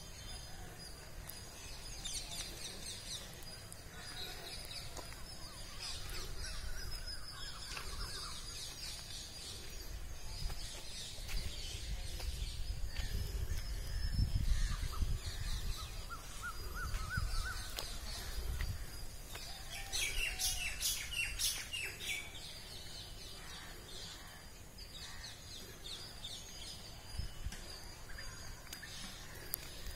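Birds chirping and calling, with a quick run of sharp chirps about two-thirds of the way through, over an uneven low rumble on the microphone that is strongest about halfway through.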